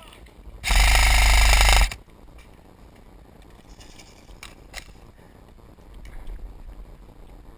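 KWA M4 airsoft rifle firing one full-auto burst of about a second, a rapid mechanical rattle. Two short sharp clicks follow a few seconds later.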